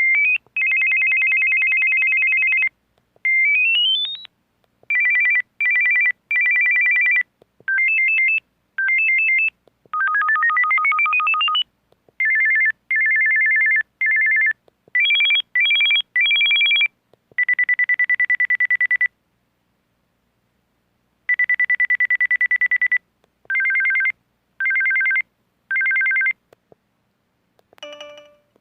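A cellphone's built-in electronic ringtone: a string of beeping two-note tones, some held and some in quick pulses, with rising sweeps about four and ten seconds in and short pauses between phrases, including a longer gap near twenty seconds.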